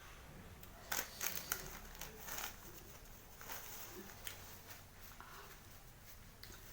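Eating sounds of spicy fried rice: a scattering of soft clicks and short scrapes, most of them in the first half.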